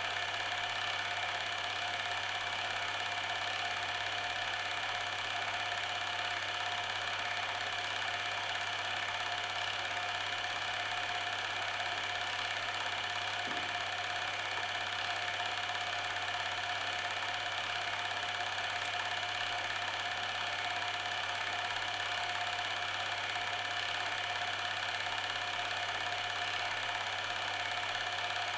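A steady mechanical whirring hum, unchanging, made of several held tones over a low drone.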